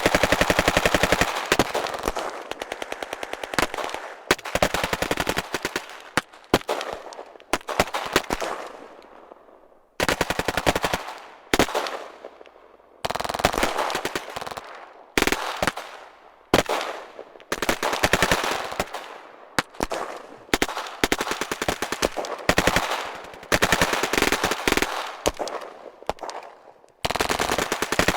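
Automatic gunfire: repeated bursts of rapid machine-gun shots with scattered single shots, each burst fading into echo, with brief pauses between bursts.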